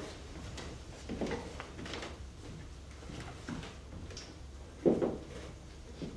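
Irregular knocks and thumps of footsteps and movement on a theatre stage floor, with one louder thump about five seconds in.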